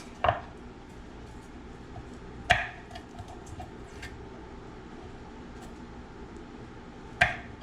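Three sharp knocks of hard kitchen objects set down or tapped on a counter during garlic prep: one right at the start, one a couple of seconds in and one near the end, each with a short ring, over a steady low background noise.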